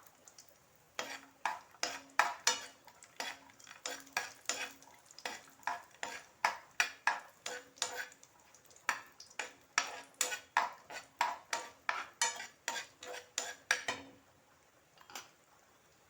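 A spoon stirring chopped cashew nuts as they fry in ghee, scraping and knocking against the pan about three times a second. The stirring stops near the end.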